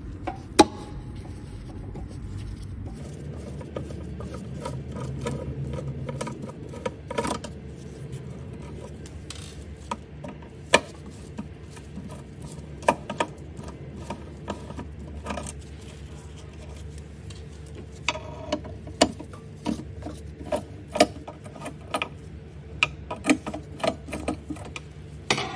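Small electric screwdriver running steadily as it backs out the inverter's cover screws, with scattered sharp clicks and taps of metal on top that come more often near the end.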